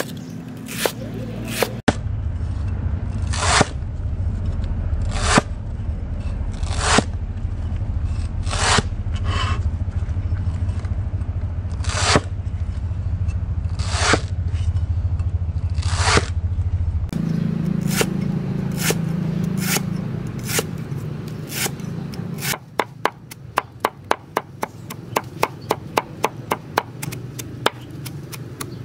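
Hand-forged leaf-spring steel cleaver slicing through lemongrass stalks and striking a round wooden chopping block. At first there is one crisp cut about every one and a half to two seconds, then a quick run of several chops a second. Under the slower cuts there is a low steady rumble.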